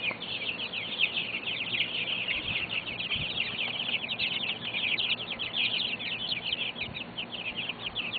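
A brooder full of chicks peeping continuously: many short, falling cheeps overlapping one another.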